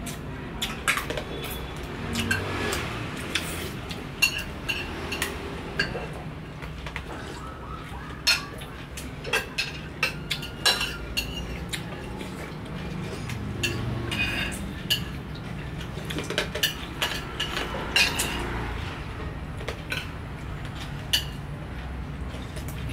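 Metal spoons clinking and scraping against ceramic bowls and plates as people eat, in irregular clinks, some ringing briefly.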